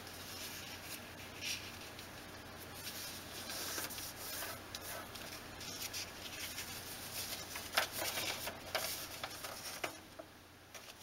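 A sheet of paper being handled and folded: faint rustling and crinkling, with a few brief crisper crackles as the creases are pressed, the loudest near eight seconds in.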